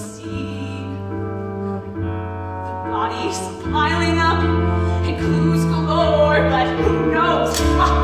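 A woman singing a musical-theatre song with instrumental accompaniment: held chords over a steady bass line, with her voice coming in about three seconds in.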